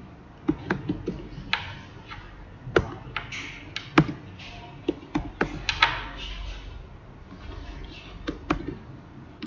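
Computer keyboard keystrokes typed in short irregular runs, with sharp clicks and a few heavier taps.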